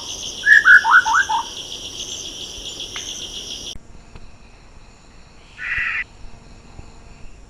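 Andaman shama singing a quick run of falling whistled notes over a steady pulsing insect chorus. About four seconds in the sound cuts to quieter background, where a single short call is heard near six seconds.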